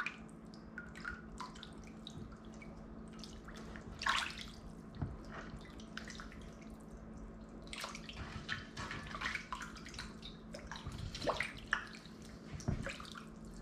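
Water splashing and dripping in irregular bursts as raw chicken is rubbed and turned by hand in salted water.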